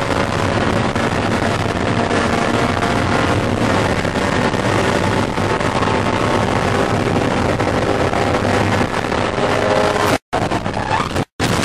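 Spec Miata's four-cylinder engine running steadily at high revs, flat out at about 120 mph, with heavy wind and road noise inside the car. About ten seconds in, as the car makes contact with another, the sound cuts out twice for a split second.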